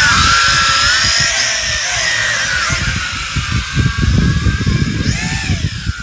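Toy quadcopter's motors and propellers whining as it leaves the hand and climbs away, the pitch wavering up and down with throttle and getting slightly fainter. Gusty wind rumbles on the microphone underneath.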